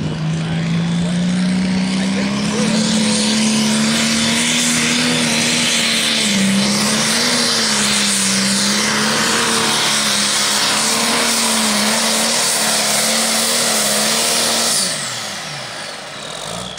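A John Deere 4960 Limited Pro Stock pulling tractor's turbocharged diesel engine running at full throttle through a pull. Its pitch climbs over the first two seconds as the tractor leaves the line, then holds high and wavers as it drags the sled, with a loud turbo whine over it. About fifteen seconds in the throttle is cut, and the engine pitch and the turbocharger whistle fall away.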